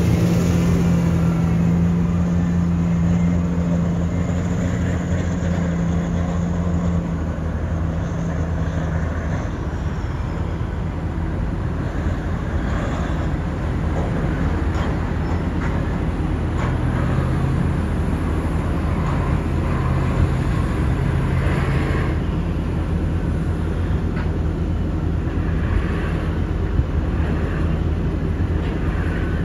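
Heavy diesel mining machinery running: a Cat 6020 hydraulic mining shovel and haul trucks loading coal, a loud steady low drone whose tones shift as the machines work.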